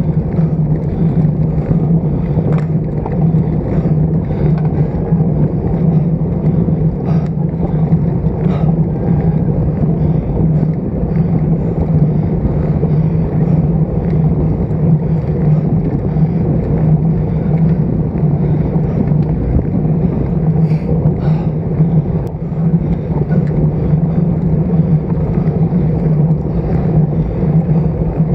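Steady wind and road noise from a road bike ridden at speed, picked up by an action camera mounted on the handlebar stem, with a strong low hum and a few faint ticks.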